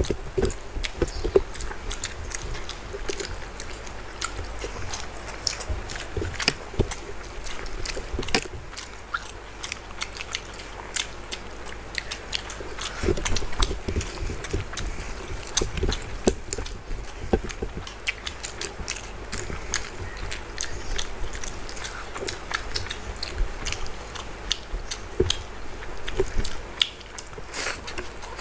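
Close-up chewing and wet lip-smacking of two people eating fried rice and curry by hand, a dense run of irregular mouth clicks with no pauses.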